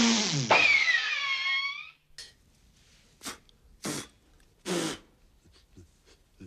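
A loud, drawn-out cry that swoops down and then up in pitch for about two seconds. Then come several short, sharp sneezes, spaced half a second to a second apart, and faint short sounds near the end.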